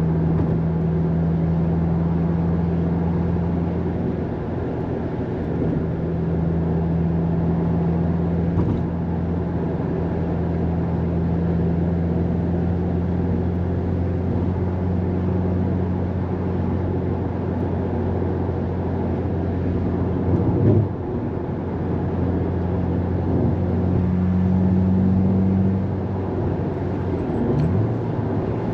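Subaru WRX STI's turbocharged flat-four engine droning steadily, heard inside the cabin with road noise as the car drives. There is a brief break in the drone about two-thirds of the way through, and the engine pitch changes near the end.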